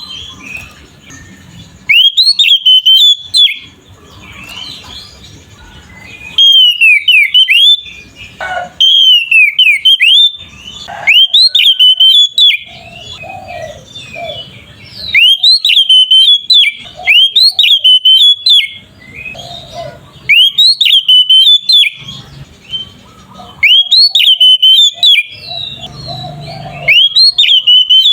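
Oriental magpie-robin (kacer) singing in loud, clear whistled phrases of sliding notes, each about a second or a second and a half long, repeated every couple of seconds with softer twittering in between.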